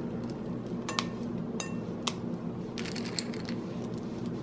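A few light, scattered glass clinks and taps as glass bowls are handled while chocolate chips are laid into a glass trifle bowl. Some clinks ring briefly. A faint steady low hum runs underneath.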